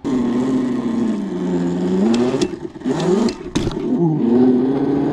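Electric mini bike's 6000 W, 72 V motor whining under throttle. Its pitch sinks and then rises with the bike's speed, and it dips briefly twice about halfway through, with a few sharp clicks.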